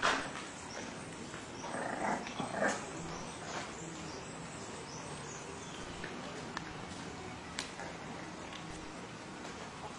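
English bulldog puppies playing, with a short loud sound right at the start and a cluster of brief puppy vocalizations around two seconds in. A few light clicks are scattered through the rest.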